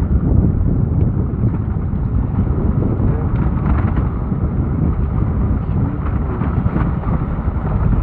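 Steady, loud wind rumble on the microphone mixed with the running noise of the moving vehicle carrying it.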